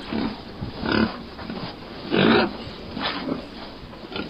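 Domestic pig grunting, a series of short grunts about a second apart, the loudest about two seconds in.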